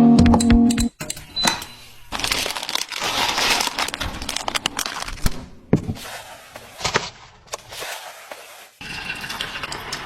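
Guitar music stops about a second in, followed by crinkling and scattered sharp clicks and knocks of food being handled and prepared.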